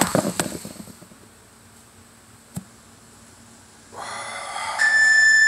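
A knock and rattle at the start, with a single click a couple of seconds later, then a high, steady buzzing tone lasting about a second near the end.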